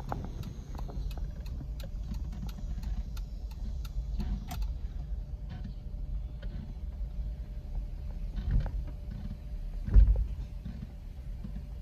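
Low, steady road rumble of a car heard from inside the cabin as it rolls slowly, with light ticking over the first few seconds. A thump about eight and a half seconds in and a louder one about a second later come as the tyres bump onto the wooden-plank deck of a one-lane bridge.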